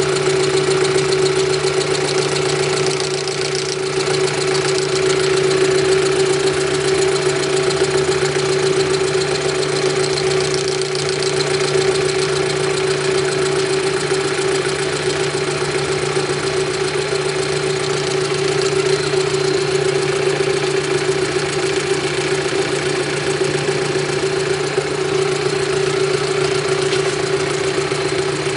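Small metal lathe running at a constant speed while a spinning hob cuts teeth into a worm gear blank: a steady motor hum and whine over a continuous hiss.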